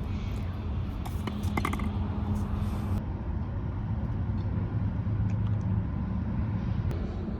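Steady low rumble of a vehicle running, with a few light clicks in the first two seconds; the sound changes abruptly about three seconds in.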